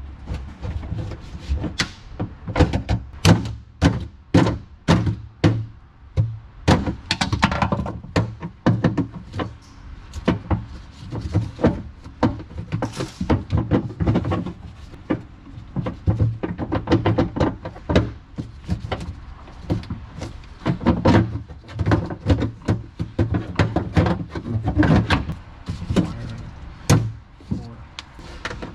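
Irregular knocks and thunks as car interior trim and parts are pried, pulled and handled.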